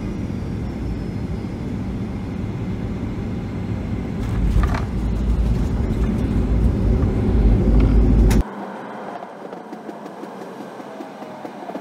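Cabin noise inside a Boeing 737-800 rolling out on the runway after landing: a steady, deep rumble that grows louder about four seconds in. About eight seconds in it cuts off suddenly to a thinner, quieter noise.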